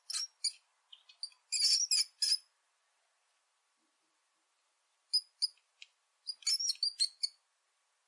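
Rapid high-pitched chirps and squeaks, in one cluster over the first two and a half seconds and another from about five to seven seconds in, with silence between.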